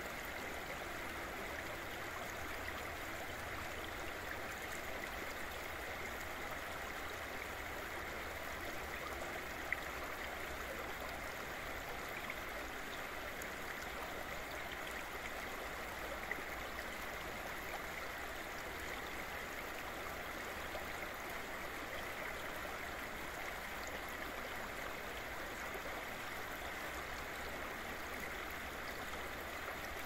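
Side channel of the Bzyb River flowing: a steady, even rush of running water.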